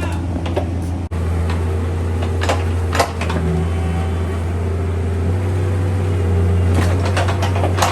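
Bobcat 341D mini excavator's diesel engine running steadily under load, with a few sharp knocks and clanks from the machine at work.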